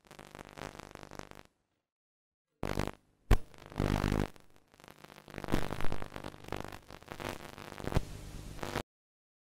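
Glitchy electronic intro sound effects: buzzing, distorted synth tones mixed with static, cutting in and out abruptly. There are sharp clicks about three seconds in and again near the end, and everything stops dead just before the end.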